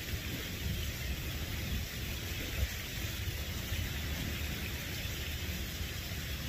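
Steady, even rush of river water pouring through and over a small dam, with a low rumble underneath.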